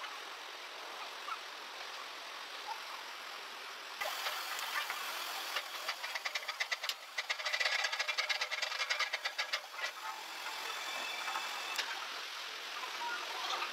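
A steady rush of flowing water, then, about four seconds in, a louder stretch with a fast mechanical clatter of rapid, evenly spaced knocks that fades out around ten seconds in.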